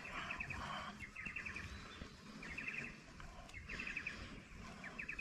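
A small animal's chirping call: short, quick trills of clicks, high in pitch, repeated about five times at roughly one-second intervals over a faint background hiss.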